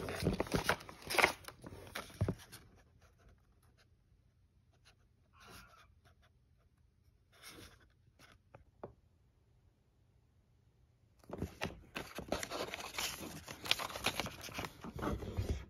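Paper rustling and crinkling as folded printed cards and a booklet are opened and leafed through by hand. It comes in two spells, one in the first couple of seconds and a longer one from about eleven seconds in, with near quiet between.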